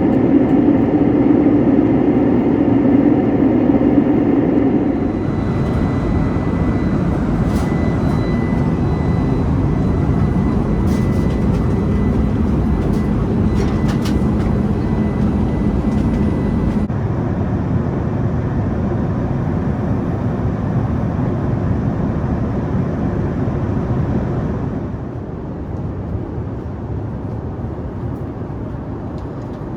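Airbus A380 cabin noise: the steady rush of air and engines, changing abruptly three times as if in separate stretches. A faint steady high tone and a few light clicks sit in the middle stretch.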